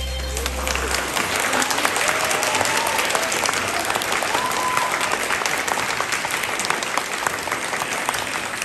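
Audience clapping and cheering as the dance music stops, with a few short voiced whoops in the first few seconds.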